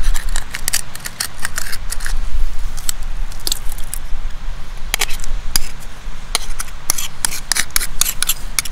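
Small knife blade scraping and clicking against a scallop's shell as the scallop is shucked: a run of irregular sharp clicks and scrapes.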